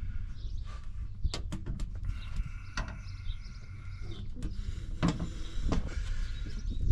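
Scattered light knocks and clicks of PVC drain pipe fittings being handled and fitted, about half a dozen at irregular times, over a low steady background rumble.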